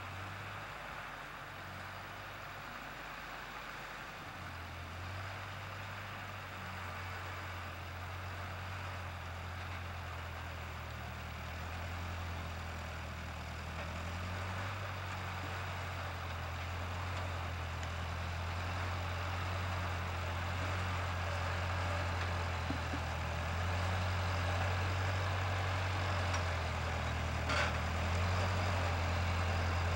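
Ford 8N tractor's four-cylinder flathead engine running steadily as it pulls a plow through the soil, growing louder toward the end.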